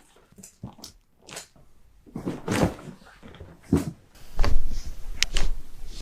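Chiropractic adjustment: a patient being handled on the treatment table, with rustling and several sharp clicks. The loudest part comes a little over four seconds in: a low thud followed by a sharp crack of the kind a joint gives when adjusted.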